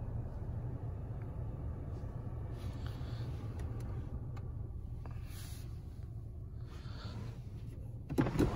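Steady low hum in a car cabin with a few soft clicks of buttons being pressed. Near the end the 2020 VW Passat's electric glass-roof mechanism starts up with a louder rising motor whirr.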